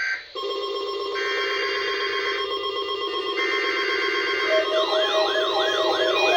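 NOAA Weather Radio 1050 Hz warning alarm tone, a steady tone starting about a third of a second in, with a higher receiver beep pulsing on and off about every second and a quarter. About two-thirds of the way through, a weather radio receiver's alert siren joins, sweeping up and down about twice a second: receivers being set off by the weekly test.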